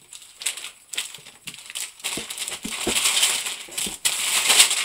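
Plastic snack wrappers crinkling and rustling with scattered sharp clicks as a hand rummages through a pile of packaged sweets. The sound grows denser and louder from about two seconds in.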